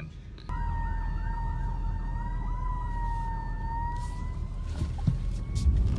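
Emergency vehicle siren: a steady high tone with a fast warble over it, starting about half a second in and fading out around four seconds, heard over the low rumble of the car.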